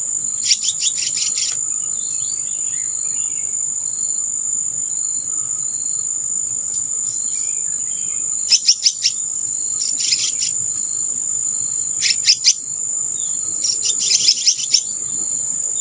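A steady, high-pitched insect drone runs unbroken, with a fainter insect chirping pulsing beneath it. Five short bursts of rapid bird chirps break in over it.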